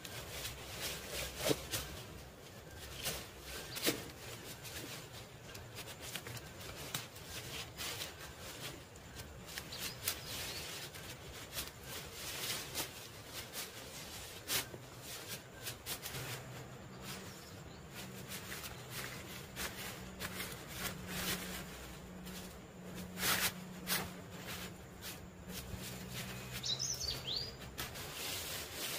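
Leafy branches rustling and twigs crackling in irregular snaps as they are pushed into a lattice of thin wooden poles to make a shelter wall. A bird chirps briefly near the end.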